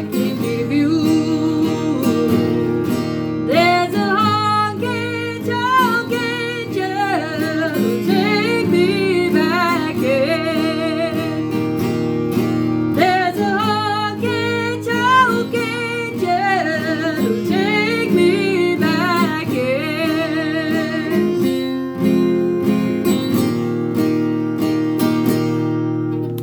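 Strummed acoustic guitar accompanying a wavering sung melody line with vibrato, in phrases of a few seconds, in a slow country song.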